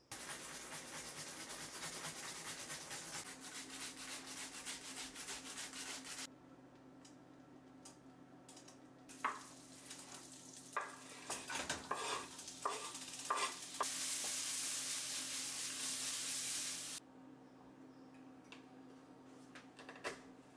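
Food sizzling in a frying pan. Partway through, a utensil knocks and scrapes against the pan several times, then comes a louder, even sizzle that cuts off abruptly near the end.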